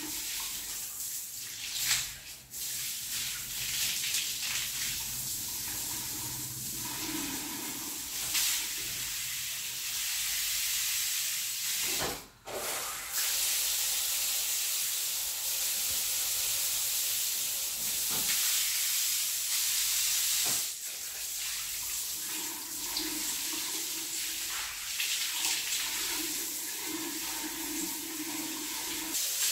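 Shower water spraying in a steady hiss from a hand shower and from an overhead rain shower, as a newly fitted two-inlet diverter is switched between the outlets. The spray breaks off briefly about twelve seconds in and again about twenty-one seconds in.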